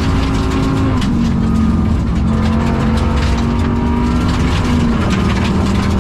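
Rally car engine running hard under load, heard from inside the cabin, its pitch holding fairly steady with small drops about a second in and again near the end. The engine has a bad misfire and is down on power. Rapid clicking runs over it.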